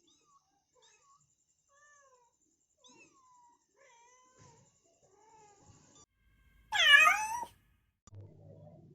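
Mother cat calling her kittens: a string of faint, short pitched calls, then one loud, drawn-out meow about seven seconds in, followed by a faint low rumble near the end.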